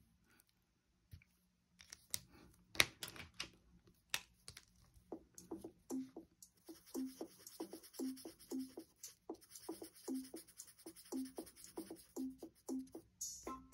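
Felt-tip marker rubbing on paper in short back-and-forth colouring strokes, about three a second, from about five seconds in. Before that, a few sharp clicks and scratches as one marker is put down and another taken up.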